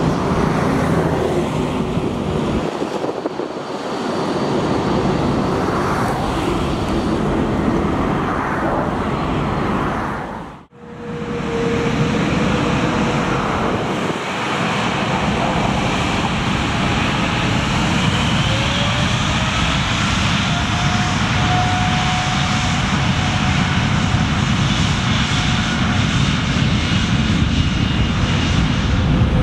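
Boeing 787-8 airliner's Rolls-Royce Trent 1000 jet engines running as it moves along the runway: a steady jet noise that briefly drops out about ten seconds in. In the second half a faint engine whine rises and then holds.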